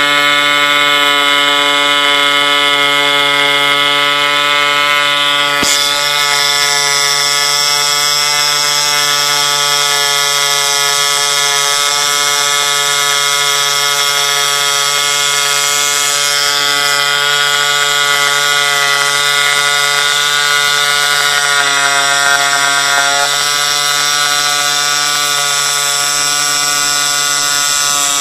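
MPCNC needle cutter running while cutting foam board: a steady, loud buzz from the needle reciprocating in its copper welding-tip guide and the machine's stepper motors. The tone shifts in pitch near the end, as the machine's motion changes. The needle runs hot from friction in the guide and loads up with melted foam residue.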